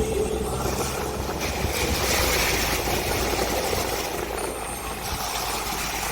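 Motor vehicle engine running steadily with a low hum, under an even wash of road or traffic noise.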